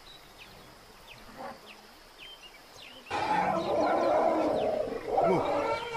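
Elephants trumpeting and roaring, starting loudly about three seconds in as they charge a crocodile, after a quieter stretch with a few faint, short bird chirps.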